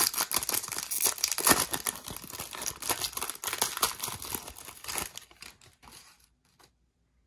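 Foil wrapper of a Donruss football card pack crinkling and tearing as it is ripped open and peeled back from the cards. The crackling stops about five seconds in, leaving a few faint ticks as the cards are handled.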